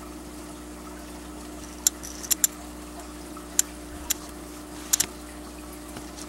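Aquarium filter running: a steady hum with water trickling, and a handful of sharp ticks from about two to five seconds in.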